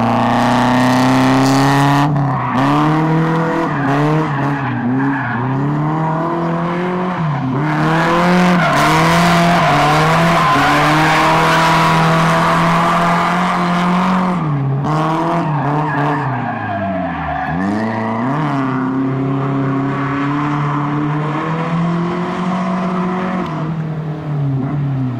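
Nissan S13 drift car's engine revving up and down over and over as it slides, with tyres squealing and skidding through the drifts, the squeal heaviest in the middle stretch. About two thirds of the way through, the revs drop sharply and climb again.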